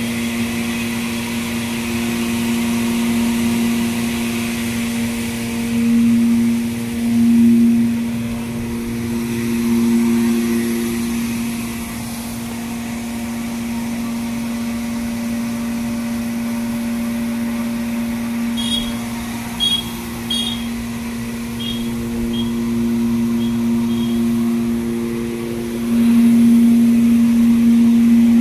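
Rice mill machinery running with a steady, loud hum. It swells louder a few times and again near the end. A few short high chirps or ticks come about two-thirds of the way in.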